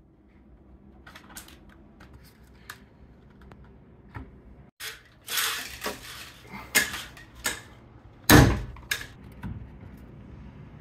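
Clicks, taps and scrapes from the hard plastic case of a homemade Stratux ADS-B receiver being handled and set up, with one sharper knock about eight seconds in.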